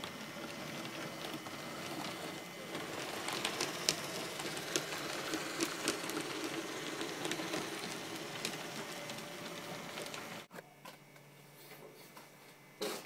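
HO-scale model train running along the track: a steady whir of motor and wheels with irregular sharp clicks from the rails, loudest through the middle. The sound cuts off abruptly about ten seconds in, and a brief knock follows near the end.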